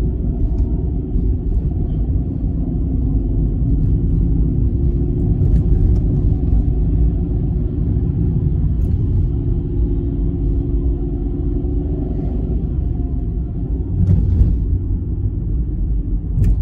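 Steady low rumble of a car driving slowly, engine and road noise heard from inside the cabin, with a few brief knocks near the end.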